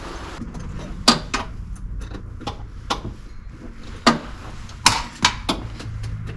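A hand tool clinking and knocking against metal in irregular single strikes, about eight in all, over a low steady hum, as a fitting at the seat base of the cab is worked and tightened.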